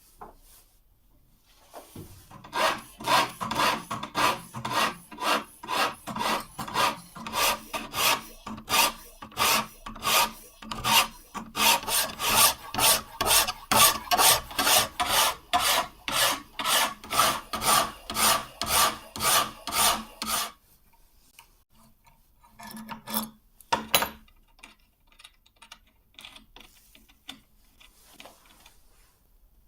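Hand file rasping across a knife blade held in a filing jig to cut the bevel, in quick back-and-forth strokes about two a second. The strokes stop a few seconds before a couple of light knocks.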